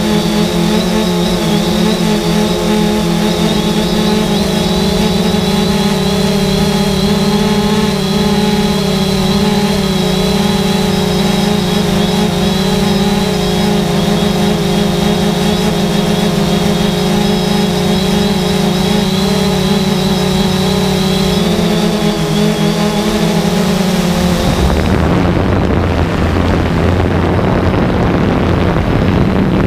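3DR Solo quadcopter's electric motors and propellers humming steadily, with a thin high whine above the hum. About 25 seconds in, the pitched hum gives way to an even rushing noise.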